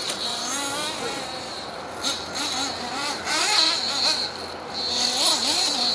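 Nitro glow engine of a 1/8-scale RC buggy revving up and down repeatedly as it drives laps on a track, during its break-in run.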